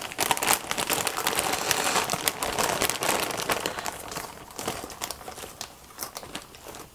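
A plastic bag of pre-cut mixed salad greens crinkling and rustling as a hand digs through it. The crackle is loudest over the first few seconds and dies down near the end.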